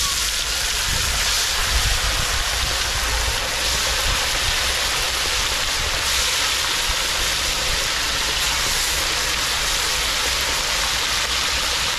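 Patwa fish deep-frying in very hot oil in a cast-iron karahi: a steady, even sizzle.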